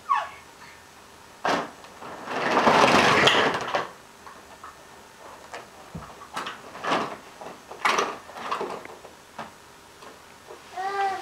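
Hard plastic kiddie pool scraping and knocking on carpet as it tips up onto its side, with one long, loud scrape about two seconds in and scattered light knocks after. A short voice near the end.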